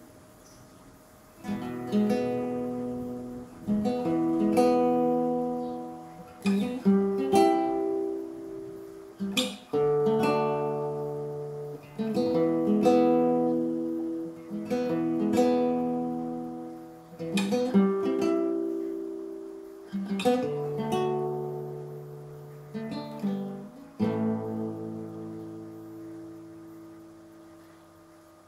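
Acoustic guitar playing slow strummed chords, each struck and left to ring out, a new chord every one to three seconds, starting about a second and a half in.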